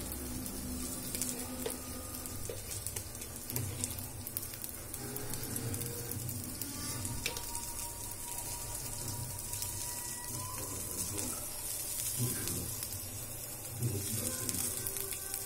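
Sprouted chickpeas and mung beans sizzling on a hot iron pan, a steady hiss.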